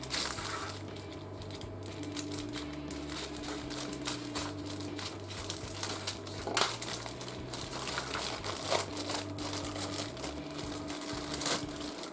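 Plastic bags crinkling and rustling as plastic model-kit sprues are handled and unpacked, with scattered light clicks of the plastic.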